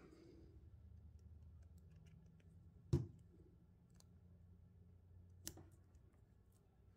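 Faint clicks and taps of hands handling small paper and chipboard embellishments and a glue bottle on a scrapbook page, with one sharper tap about three seconds in and a softer one a couple of seconds later.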